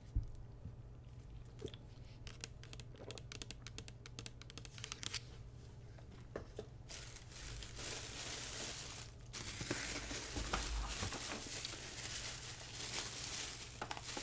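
Crinkly packaging being handled for ASMR: scattered crackles at first, then continuous crinkling and rustling from about halfway in, with a short break.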